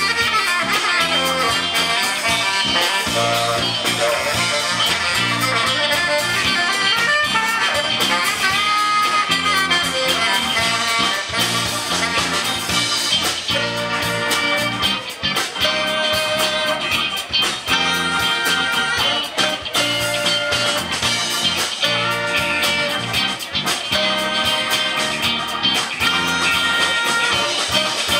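Live band playing an instrumental passage with no vocals: saxophone, trumpet, electric guitar, drums and keyboard in a blues groove.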